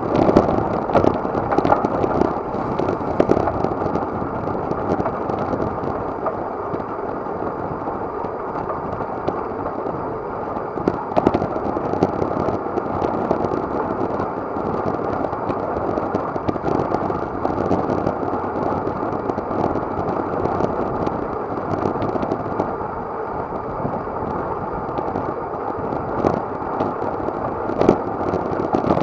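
Wind buffeting an action camera's microphone on a bicycle ridden fast, with the rattle and knocks of the bike over the road surface scattered through it.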